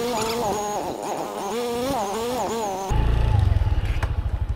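Background music with a melodic line for about three seconds, then a cut to a motorcycle engine idling, with an even low pulse.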